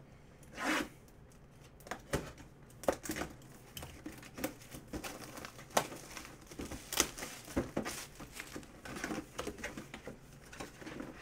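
A Leaf Autographed Mini-Helmet cardboard box being handled and opened by hand: irregular crinkling, rustling and light knocks of packaging.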